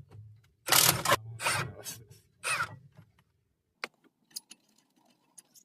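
Four short, loud, noisy bursts of tool work on the 21mm brake caliper carrier bolts as they are loosened, the first and loudest about a second in, then a few light clicks.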